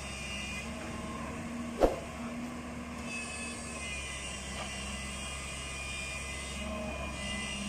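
Long-reach excavator's diesel engine running steadily as it works on a pontoon, with faint, wavering high-pitched squeals over the low hum. A single sharp click about two seconds in.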